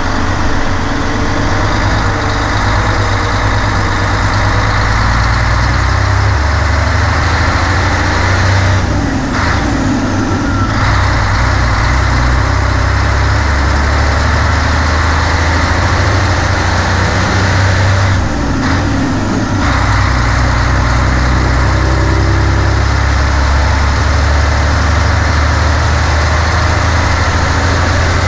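Nissan Diesel KG48U truck crane's 12.5-litre PF6TB turbocharged intercooled diesel engine running steadily under way. The engine note drops and picks up again twice, about nine and eighteen seconds in, as gears are changed on the manual gearbox.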